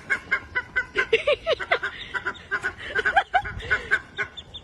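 Fowl calling: many short, pitched calls repeated several times a second.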